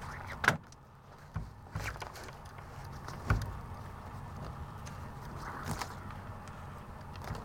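Sailcloth rustling and crinkling by hand as a lace line is worked through the sail's grommets around a wooden gaff. A few sharp knocks stand out, the loudest about half a second in and another about three seconds in, over a low steady rumble.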